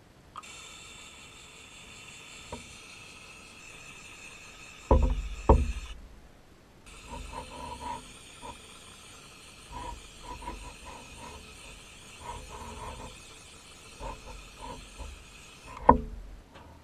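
Powder coating gun spraying inside a spray booth: a steady hiss of air and powder, broken by a few loud low thumps and irregular clusters of short sputtering pulses, with a sharp knock near the end.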